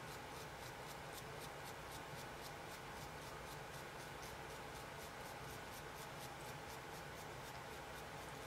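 A small brush scrubbing a chrome guitar tuning machine with quick, even back-and-forth strokes, about five a second, faint and scratchy.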